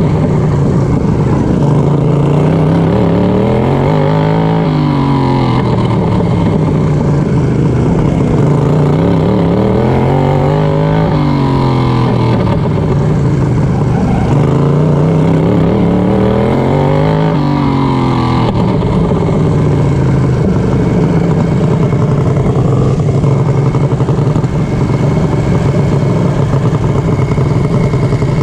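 Racing lawnmower engine running hard under race throttle, heard up close from on board. Its pitch sinks and climbs again about every six seconds, slowing into each turn of the oval and winding back up down the straights, then holds steady for the last ten seconds or so.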